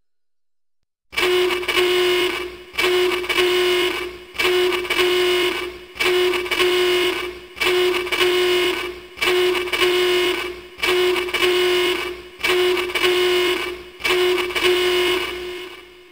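Alarm horn sound effect: a harsh, steady-pitched buzzing blast repeating nine times, about every second and a half, starting about a second in and fading out near the end.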